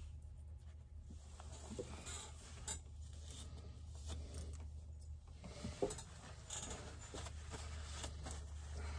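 Faint handling noises from someone working at a workbench: scattered light clicks and clinks of small parts and some rustling, over a steady low hum.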